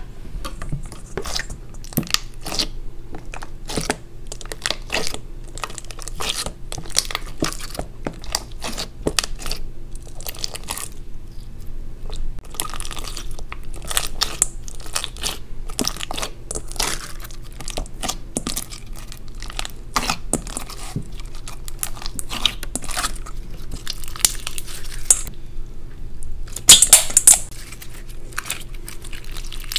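Hands squeezing and kneading clear slime packed with small coloured beads in a stainless steel bowl: wet squishing with dense irregular crackles and pops, and a louder burst of crackling near the end. A faint steady hum lies underneath.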